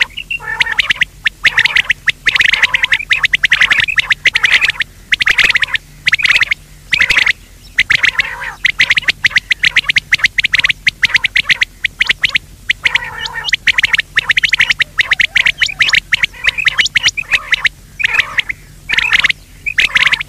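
Recorded quail calls played as a lure for netting quail: rapid runs of sharp, repeated notes in bursts of a second or two, separated by short gaps, with a faint steady hum underneath.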